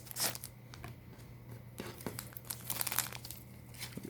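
Foil Yu-Gi-Oh Speed Duel booster pack crinkling and being torn open by hand, with irregular sharp crackles.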